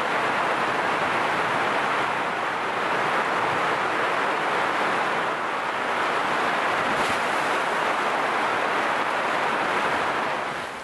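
Heavy rain falling steadily in a dense, even hiss.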